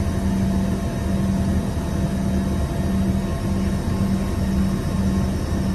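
Steady engine noise of an Embraer ERJ-145 regional jet heard from inside the cabin: a constant rumble and rush with a low hum that wavers slightly, from its rear-mounted Rolls-Royce AE 3007 turbofans.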